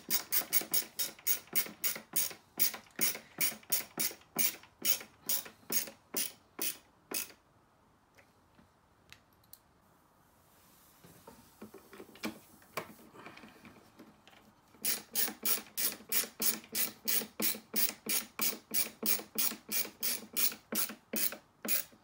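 Ratcheting screwdriver clicking about three to four times a second as screws are driven into a monitor stand mount. The clicks come in two runs with a pause of several seconds in the middle.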